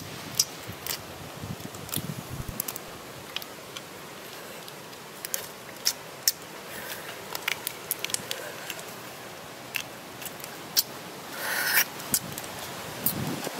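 Large cooked shrimp being eaten by hand: irregular sharp clicks and crackles of shell being cracked and pulled apart, with eating sounds. A longer rasping crackle comes near the end.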